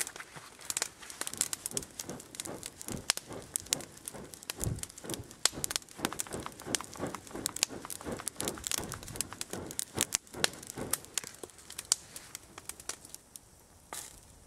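Wood campfire crackling, with many sharp pops and snaps in quick succession, dying down a little near the end.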